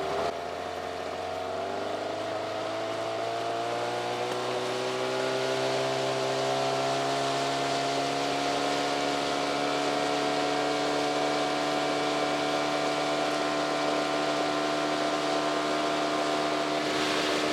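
Boat outboard motor running, its pitch rising over the first several seconds as it speeds up, then holding a steady pitch as the boat motors along.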